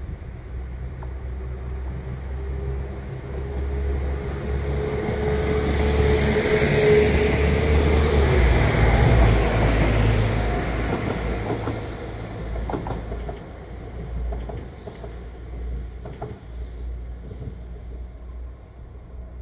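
A train passing close by: a steady low rumble with a high hiss that grow louder to a peak about halfway through, then fade away.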